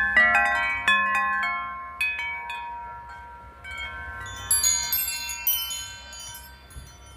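Wind chime ringing: a cluster of overlapping metallic tones that ring on and fade over the first couple of seconds, then a second flurry of strikes about halfway through.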